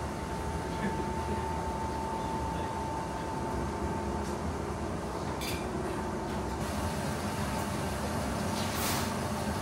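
Steady mechanical hum of café ventilation and equipment, with a thin steady whine that fades out about a third of the way in and a couple of light clicks later on.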